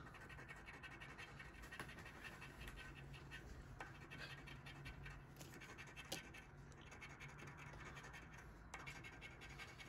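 Faint scratching as the silver coating is scraped off a scratch-off lottery ticket, with a few light clicks.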